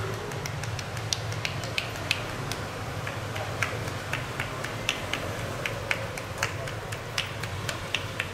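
Sharp, irregular clicks of a masseuse's fingers snapping and slapping on a bare back, about two or three a second, over a steady low hum.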